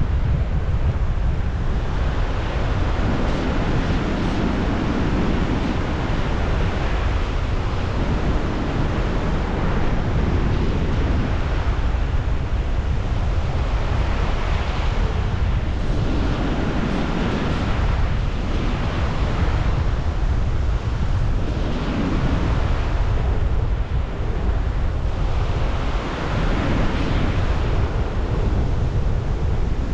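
Strong wind blowing over the microphone: a heavy, steady rushing that swells and eases every few seconds with the gusts.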